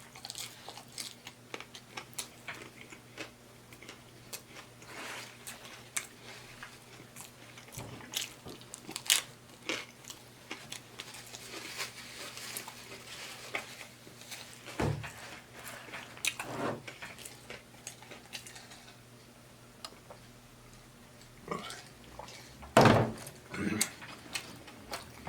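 Close-miked eating of a taco salad: irregular bites and chewing with crisp crunches from the crispy taco shells and lettuce, the loudest cluster of crunches near the end.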